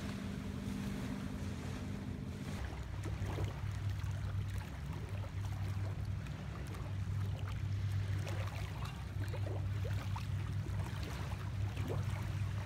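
Low, steady motorboat engine drone across the lake, dropping to a lower pitch about two and a half seconds in, with small waves lapping faintly.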